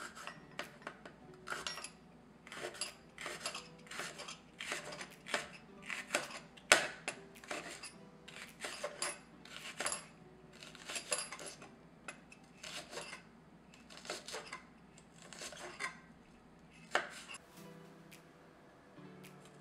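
Chef's knife chopping a bell pepper into thin strips on a cutting board: a steady run of sharp knocks of the blade on the board, about two a second, stopping near the end.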